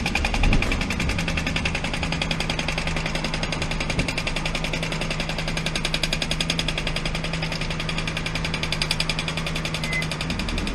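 Inside a car held in slow traffic: a fast, even rattle over a steady low hum.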